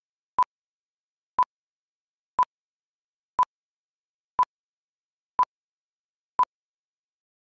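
A short electronic beep at one steady pitch, repeated once a second, seven times, with silence in between.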